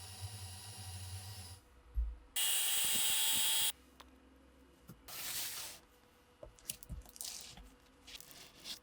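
A small motor hums steadily and stops about a second and a half in. Then an aerosol can sprays in a loud, even hiss for just over a second, with a second, shorter and quieter spray a moment later. Small metal parts are handled with light clicks and taps.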